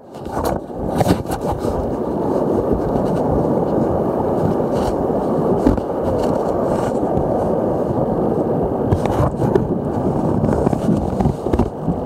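Muffled rumbling and scraping from a camera being jostled and rubbed against the paddler and the inflatable boat, with several knocks, over rushing whitewater.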